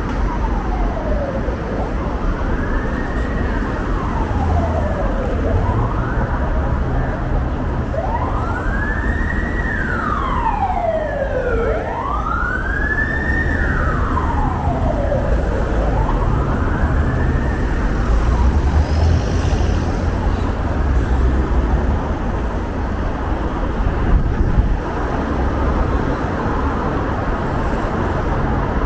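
Emergency-vehicle siren wailing in slow rising and falling sweeps, about one every three seconds, with a second siren briefly overlapping in the middle; it dies away about two-thirds of the way through, leaving a steady low rumble of city traffic.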